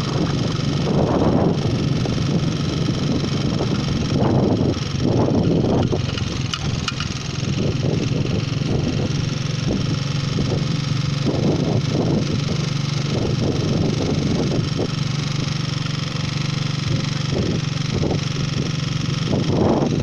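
A vehicle's engine running steadily with a low, even drone while driving along, with wind buffeting the microphone in irregular gusts.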